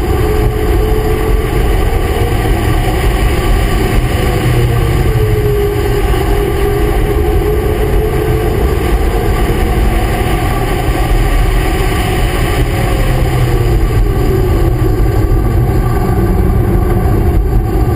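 Car engine running at speed on a racetrack, its pitch drifting gently up and down and dipping about fourteen seconds in, over a steady rush of wind and road noise on the onboard microphone.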